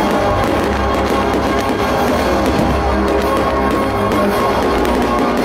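Loud music with sustained tones over a heavy low end.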